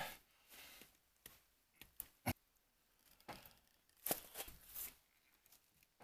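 A few faint, scattered metal clicks and knocks of the Silverado's factory lug wrench working on the lug nuts as they are tightened down. The sharpest knock comes about two seconds in, and a few more clicks follow between three and five seconds in.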